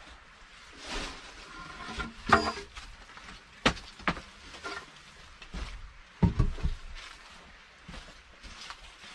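A wooden plank being handled, knocking sharply several times against the log wall and floor, the loudest knocks about two, four and six seconds in, with footsteps rustling on dry leaves in between.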